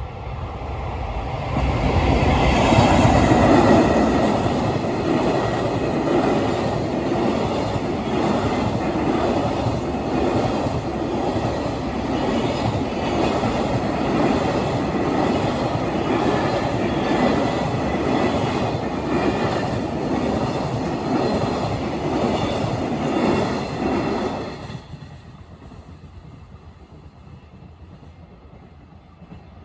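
A freight train passing close by at a level crossing. Its wagons roll past loudly for over twenty seconds, then the last car clears and the sound drops away suddenly.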